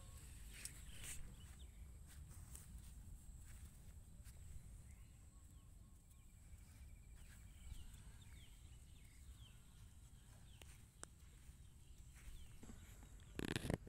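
Faint outdoor pasture ambience: a low steady rumble, a few faint bird chirps and small scattered clicks, with one short, louder knock near the end.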